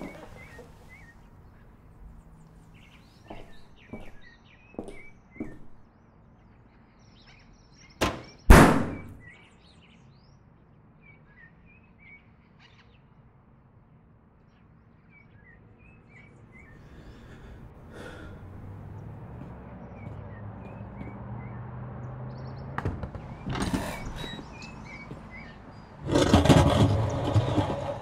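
Small birds chirping over a quiet room, with a few light knocks and two loud thuds about eight seconds in. A low hum builds through the second half, and near the end a loud rush of noise comes in.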